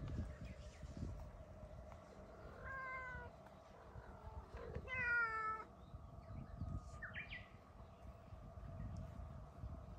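Brown tabby cat meowing twice, about two seconds apart, the second call louder and longer; each meow falls slightly in pitch.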